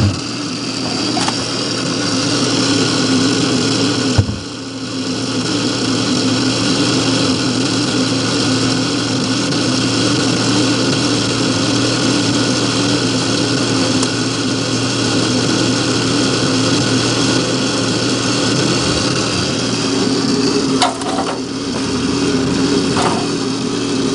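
Whirlpool refrigerator's freezer fan unit making a loud, steady grumbling hum. It drops off briefly about four seconds in and again near the end. Repairmen take the noise for a failing freezer fan unit that needs replacing.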